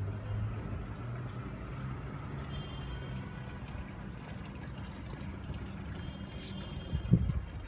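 Water trickling and pouring in a rooftop automatic irrigation and drainage system, over a steady low hum. A single knock sounds about seven seconds in.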